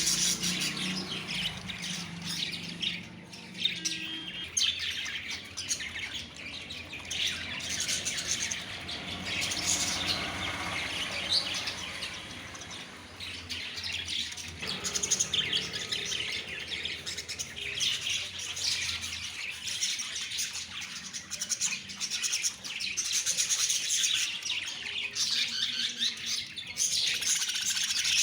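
Caged lovebirds chirping, a continuous dense chatter of many short, high calls.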